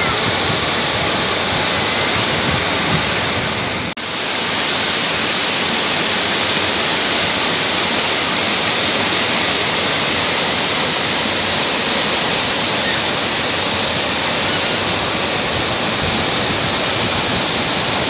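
Waterfall cascading over rock ledges into a pool, a steady rushing heard close up, with a brief dropout about four seconds in.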